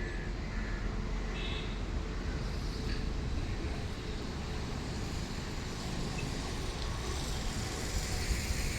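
Steady low rumble of an engine-driven machine running on a roof concrete pour, without a break.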